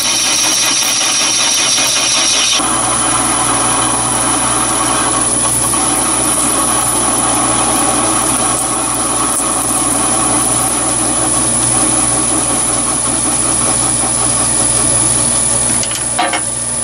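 Metal lathe running with its cutting tool turning a spinning metal workpiece: a steady machine drone with cutting noise and a thin high whine. About two and a half seconds in the sound shifts, one high tone dropping out and the middle range growing louder.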